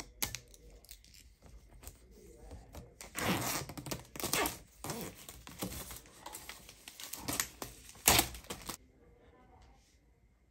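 Protective plastic film being peeled off a clear hard-shell laptop case, crinkling and rasping in stretches. The loudest moment is a sharp crackle about eight seconds in.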